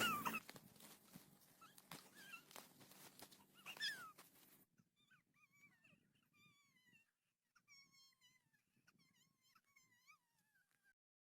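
Faint, high-pitched whimpering: short falling cries come a few at a time at first, then in a closer run over the second half.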